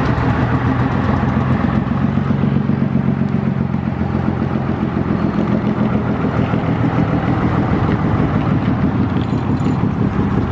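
Engines of vintage vehicles driving slowly past one after another: an old double-decker bus, then a heavy flatbed lorry, then classic cars. The low engine note is steady, strongest in the first couple of seconds.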